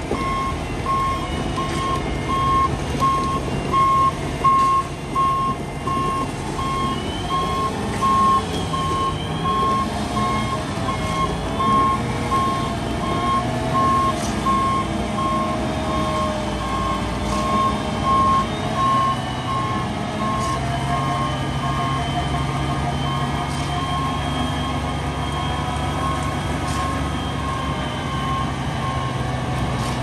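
Concrete mixer truck reversing, its backup alarm sounding a steady series of evenly spaced beeps over the diesel engine running.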